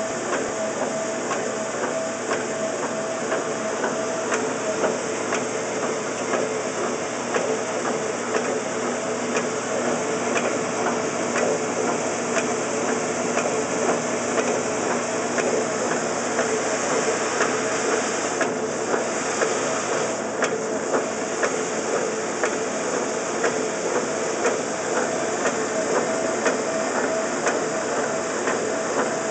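A 1969 Wards by Norge washing machine running in its wash cycle, with the motor and belt-driven transmission going. It makes a steady hum over a hiss, with a fast, unbroken clatter of small clicks.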